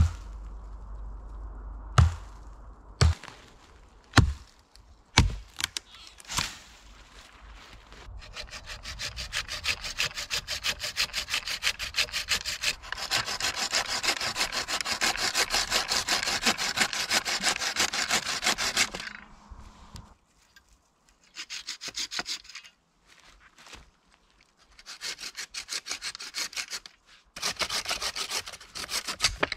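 A few sharp knocks on wood, then a hand saw cutting through wood in quick, even back-and-forth strokes: one long steady run, then shorter runs with brief pauses between them.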